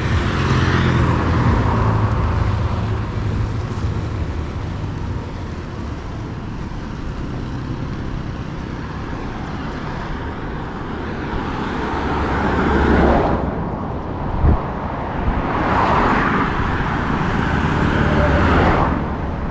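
Road traffic: a steady low rumble with vehicles passing close by, one swelling up and fading about twelve seconds in and another a few seconds later, with a short sharp knock between them.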